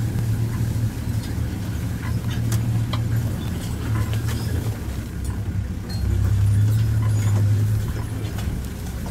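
Off-road safari vehicle's engine running as it drives through bush, a low drone that grows louder about six seconds in and eases off near the end. Scattered light clicks sound over it.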